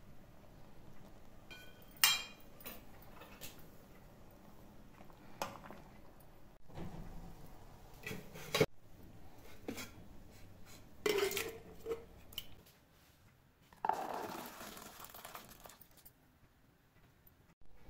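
Metal cookware being handled: a steel steamer basket and an aluminium pot clink and knock against each other several times. Toward the end comes a splashy wash of sound as cooked peas and their water are poured from the pot into a plastic tub.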